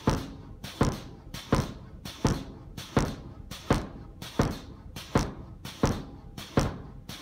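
Homemade pneumatic forging power hammer, its 69 kg ram striking a red-hot steel bar on railway-rail dies. The blows come in a steady rhythm of about three every two seconds, each a sharp clang with a short ring.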